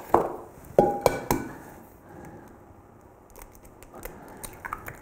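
A hen's egg knocked against the rim of a stoneware mixing bowl: a few sharp knocks about a second in, one with a brief ring, then faint crackles near the end as the shell is pulled apart.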